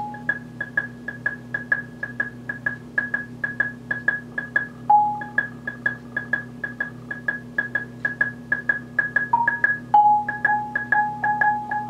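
Two marimbas played with mallets by a percussion quartet: a quick, steady run of short strokes on a high note. Lower notes come in near the start and about five seconds in, and from about ten seconds in they become a second repeated line under the first.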